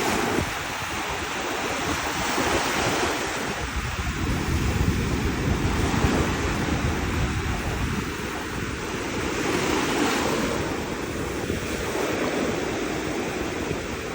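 Mediterranean Sea surf breaking and washing up the beach, a continuous rush that swells and eases every few seconds as waves come in, with wind rumbling on the microphone.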